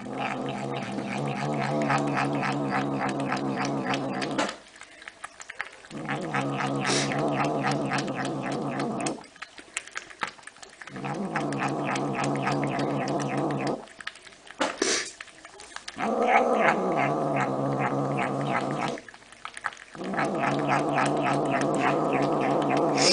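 Grey domestic cat making long, low, drawn-out vocal calls while lapping milk from a steel bowl: five calls of about four seconds each, with short pauses between them, and a quick ticking of lapping running through the calls.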